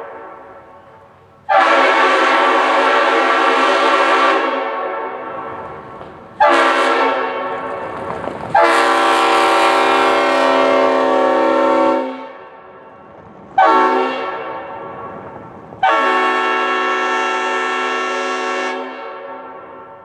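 Train air horn sounded in five blasts of about two to three and a half seconds each, every one starting abruptly. Each blast leaves a fading echo before the next.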